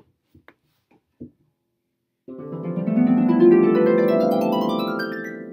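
A 47-string pedal harp swept in a fast rising glissando a couple of seconds in, the notes ringing on as it climbs. It sounds the scale set by the pedals the harpist has just moved. A few soft knocks of the pedals being shifted come before it.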